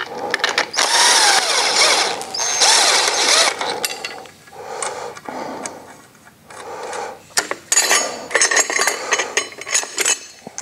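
Cordless drill with a socket running in two short spins in the first few seconds, backing nuts off the carriage bolts of a clutch spring compressor. After that come scattered metal clicks and clinks as the parts are handled.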